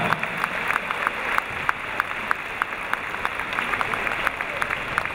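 Large crowd applauding steadily, with sharp individual claps standing out from the wash of clapping.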